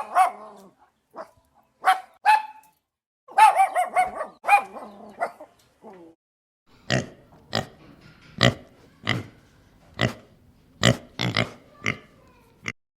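Animal calls: a series of short, high-pitched calls in the first half, then a steady run of short grunt-like calls about every half second.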